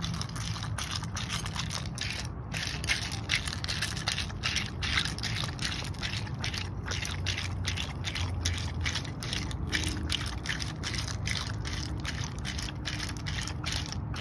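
Dog licking and slurping at a bowl of ice cubes, its tongue and mouth rattling the cubes in quick repeated laps, about three or four a second.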